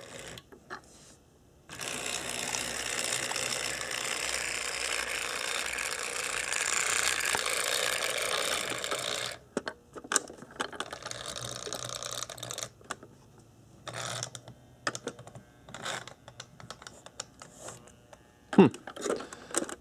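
Marx 6096 New York Central Hudson toy locomotive running on track, a steady mechanical whirring and rattling of its motor, gears and wheels, which cuts off suddenly about nine seconds in. Scattered clicks and knocks follow, as the locomotive stalls in what the owner calls locking up.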